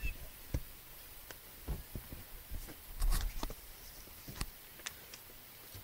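Scattered taps, clicks and knocks of a person moving about in a canoe, with gear and the hull being bumped, and one heavier thump about three seconds in.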